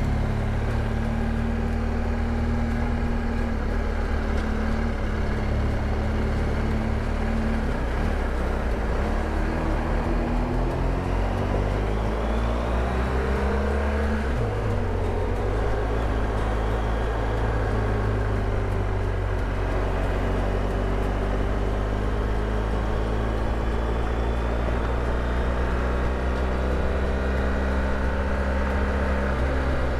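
BMW R1200GS Adventure's boxer-twin engine running steadily while riding on the open road, with wind rush; the engine note climbs and then drops back about halfway through.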